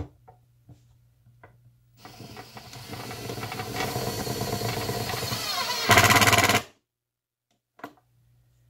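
Power drill driving a screw through an inverter's mounting foot into a board. The motor runs and grows louder over about four seconds, peaks loudest for about half a second, then stops abruptly.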